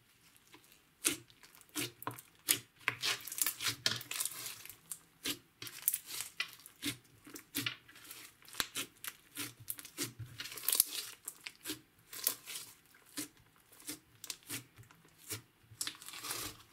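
Green slime with small foam beads being stretched, folded and pressed by hand: an irregular run of sticky crackles, pops and squishes, several a second.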